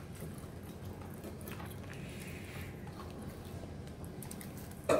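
Soft chewing and mouth sounds from eating chicken by hand, faint over low room tone, with a brief louder sound just before the end.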